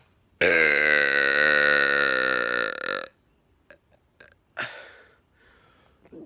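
A long, loud, drawn-out human burp of about two and a half seconds, held at a steady wavering pitch, starting about half a second in. About four and a half seconds in there is a short, sharp noisy burst.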